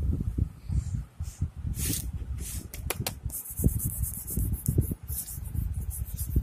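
Fingers rubbing and smudging pastel colour on a sketchbook page: irregular scuffing with dull bumps against the book and table, and brief hissing swishes of skin on paper.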